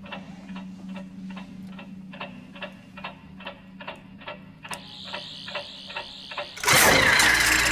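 Clockwork ticking: a steady, even tick about two and a half times a second over a low hum. Near the end a sudden, much louder burst of sound cuts in.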